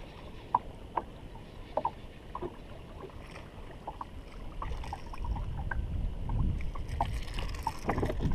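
Lake water lapping against a boat hull in small irregular plinks and slaps, with wind buffeting the microphone and growing stronger about halfway through.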